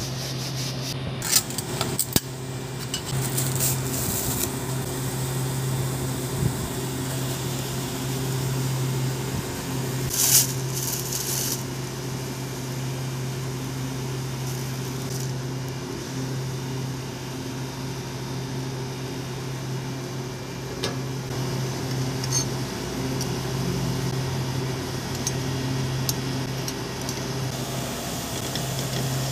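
Steady hum of running refrigeration machinery, with a few short metallic clinks and knocks from parts being handled at an open filter-drier housing, the loudest about ten seconds in.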